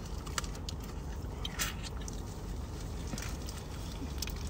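Eating sounds: clear plastic gloves and a plastic seafood-boil bag crinkling, with chewing and scattered short clicks, over a low steady hum.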